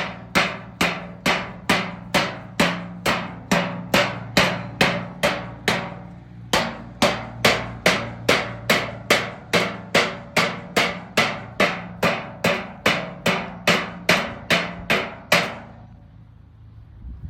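Loud, even banging, about two and a half strikes a second, each strike ringing briefly. It stops about fifteen seconds in.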